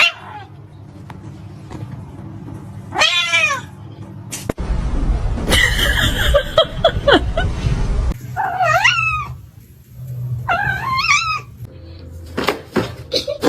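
A cat yowling three times in long, wavering calls, the sound of a cat protesting at being petted. A loud, rough noise runs in between the calls.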